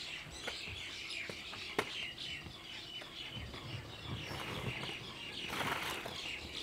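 Small birds chirping busily, many short quick chirps overlapping. A few sharp clicks and a brief rush of noise come about five and a half seconds in.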